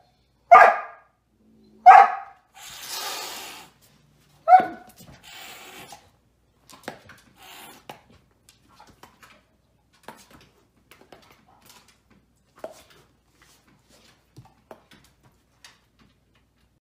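A dog barks loudly three times within the first five seconds. A short hiss comes between the second and third bark, then only faint scattered taps and rustles.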